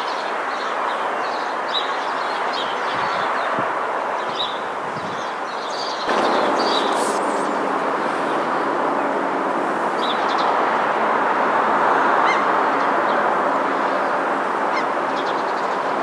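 A flock of seagulls calling, many short cries over a steady rushing background noise. About six seconds in the sound cuts to a louder background with a faint steady low hum under the gull cries.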